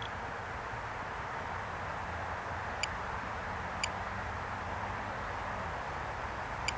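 Steady outdoor background noise with a low rumble, broken by three very short, high chirps.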